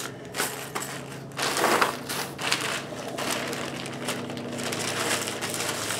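Rummaging through a set of snap-fastener setting dies and their packaging: irregular crinkling, rustling and small clicks of plastic and metal parts being handled, loudest about two seconds in, over a faint steady low hum.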